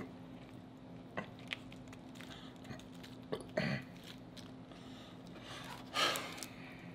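Scattered quiet clicks and cracks of king crab leg and lobster tail shell being picked apart by hand, with a short hum from the eater about halfway and a louder half-second burst near the end.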